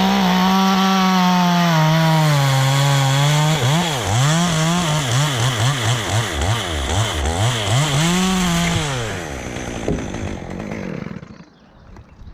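Chainsaw running at high revs for a few seconds, its pitch sagging a little as it cuts, then revved up and down in quick pulses before dropping away and stopping near the end.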